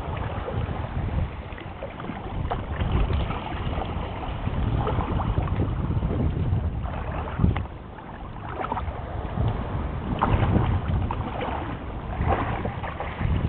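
Wind buffeting the microphone in uneven gusts, with the sea washing against a rocky shore underneath.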